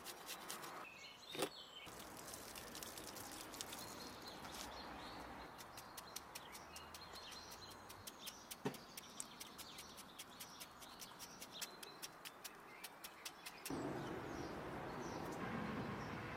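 Hand food prep at close range: rapid scraping strokes of garlic on a small metal grater, then a knife shaving and cutting a cucumber in the hand, with a couple of sharper knocks. Birds chirp in the background, and a louder steady noise takes over near the end.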